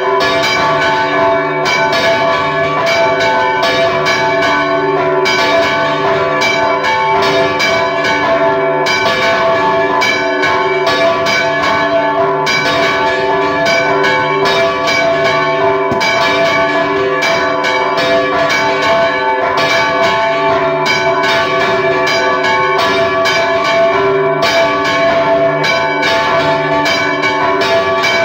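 Church bells rung by hand in a continuous, rapid repique: several bronze bells struck over and over by rope-pulled clappers, their tones ringing on over one another. Loud and close, heard from inside the bell tower beside the bells.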